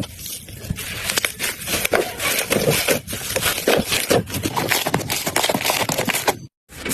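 Slime being squeezed and worked by hand, giving a dense run of wet crackling and popping clicks. The sound cuts out briefly near the end.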